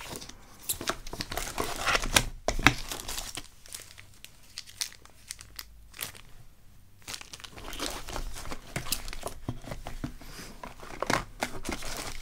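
Hands rummaging through a box of spare Swiss Army knife parts: crinkling and rustling with many sharp clicks and knocks, loudest about two to three seconds in, with a quieter stretch in the middle.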